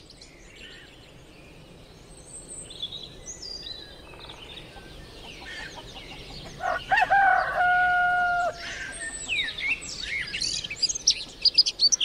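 A rooster crows once, about seven seconds in, one long held call that is the loudest sound here. Around it, birds chirp in short rising and falling notes that come thick and fast near the end.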